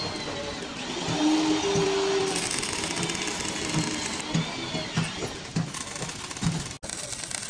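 Metalworking shop noise from a small electric power tool running, a steady whirring with irregular knocks. The sound drops out for an instant near the end.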